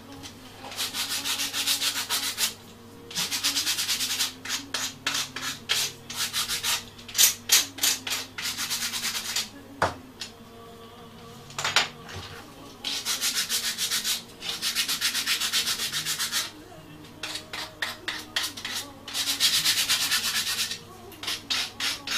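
Hand-sanding a small wooden part with sandpaper: quick back-and-forth rasping strokes in bursts of a few seconds with short pauses between them, and a couple of light knocks in a pause around the middle.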